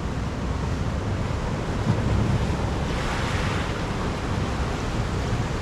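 Pacific Ocean surf washing steadily, swelling about three seconds in, with wind buffeting the microphone.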